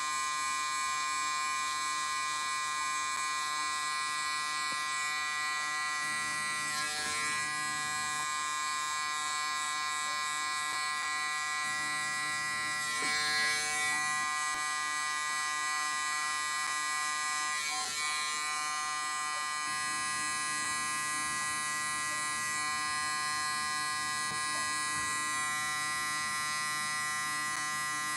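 Electric hair clippers buzzing steadily while cutting close along the hairline and temple. The buzz wavers briefly a few times as the blade meets the hair.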